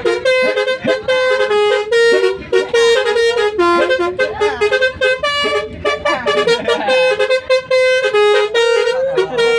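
Telolet basuri multi-tone bus horn playing a tune: loud held notes stepping from pitch to pitch, with short breaks between phrases.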